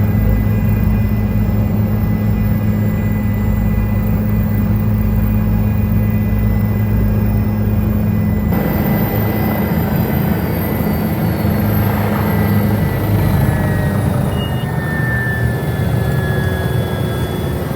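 Helicopter turbine and rotor noise, a loud steady drone with a deep hum. About eight seconds in the sound changes abruptly, and from then on a high whine slowly falls in pitch.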